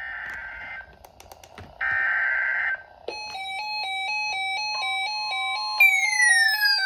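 Emergency Alert System broadcast: two buzzing data bursts of the digital header, then, about three seconds in, an electronic alert tone starts, stepping back and forth between pitches several times a second. Near the end it is joined by falling pitch sweeps.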